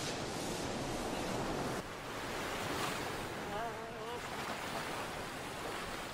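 Ocean surf washing and breaking on a sandy beach, with wind. A short wavering tone sounds briefly about three and a half seconds in.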